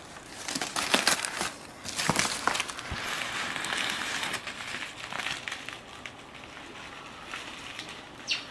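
Packaging being torn and rummaged through during an unboxing: irregular crinkling, rustling and crackling with sharp snaps, busiest in the first half and quieter toward the end.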